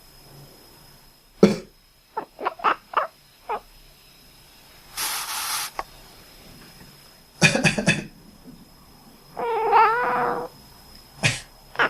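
A person coughing several times, and a resting cat answering with short, duck-like quacking calls: a quick run of four just after the first cough, and a longer call near the end. There is also a short burst of hiss about five seconds in.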